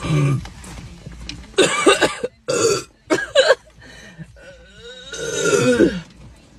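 A woman belching repeatedly: four short burps in the first three and a half seconds, then one long burp of about a second near the end.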